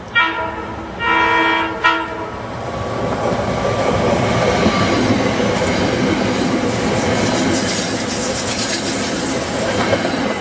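SEPTA Silverliner IV electric multiple-unit train sounding its horn: a short blast, then a longer one about a second in. It then passes close by, and the rush of wheels on rails grows over the next few seconds and stays loud.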